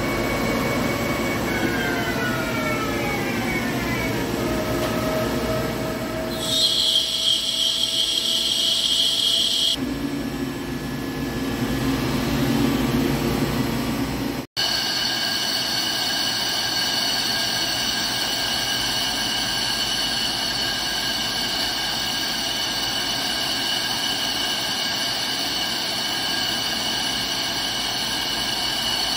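Hankook PROTEC-9NC CNC lathe spindle winding down, its whine falling in pitch over a few seconds, followed by about three seconds of louder high-pitched machine noise. After a sudden break about halfway through, the lathe runs at a steady speed with a steady whine while a boring bar cuts the bore of a ductile iron roll.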